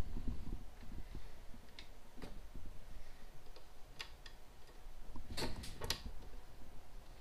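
Scattered clicks and light knocks of patch cable plugs being pushed into the jacks of a Moog synthesizer's patch panel, with a cluster of louder clicks and thumps a little past halfway.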